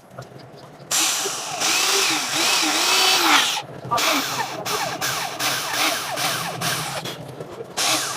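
Electric drill boring a fine pilot hole, starting about a second in, its motor pitch wavering as it bites. It stops briefly after about three and a half seconds, then runs on unevenly with repeated catches.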